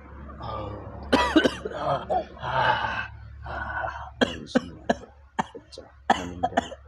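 A man coughing and hacking in fits: a long harsh cough about a second in, then a run of short, sharp coughs from about four seconds in.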